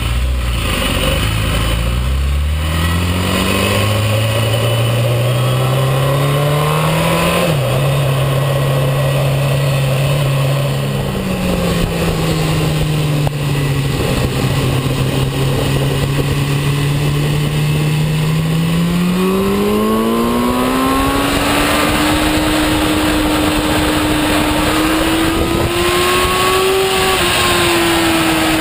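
Sport motorcycle engine heard from on board, pulling away and accelerating. Its pitch climbs, drops suddenly at a gear change about seven seconds in, holds fairly steady, then climbs again past twenty seconds to a higher steady pitch, over a constant rush of wind.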